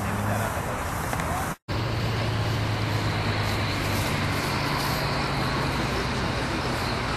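JASDF UH-60J rescue helicopter's twin turbine engines and rotor running steadily with a low hum as it lifts off and hovers low over the airfield. The sound cuts out completely for an instant about one and a half seconds in.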